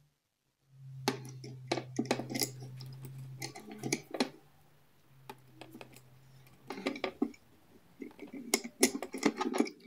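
Small clicks and taps of a violin G string being handled and threaded into the fine tuner of a Wittner light-alloy tailpiece, the string's metal end ticking against the tailpiece and the violin's top. A faint low hum comes and goes underneath.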